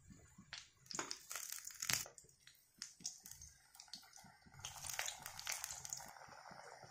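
Short sharp clicks and crackles as fried biscuits are lifted out of the hot oil with a perforated metal spoon and set on a steel plate. From about five seconds in, the oil in the kadhai sizzles steadily around a piece still frying.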